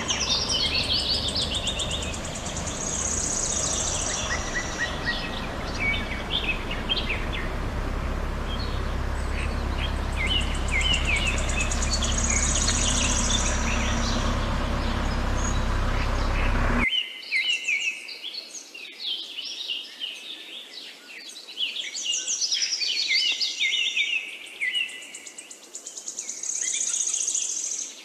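Many birds chirping and calling from the forest, with short repeated trills at high pitch, over a steady low rumbling noise that cuts off suddenly about two-thirds of the way through, after which the bird calls are heard alone.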